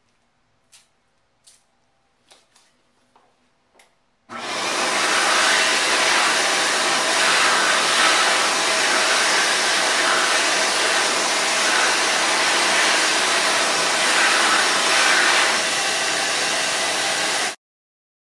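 Several quick squirts of a trigger spray bottle. Then a World Dryer SMARTdri high-speed hand dryer, set to its highest, fastest setting, starts about four seconds in with a loud, steady rush of air over hands held beneath it. It cuts off suddenly near the end.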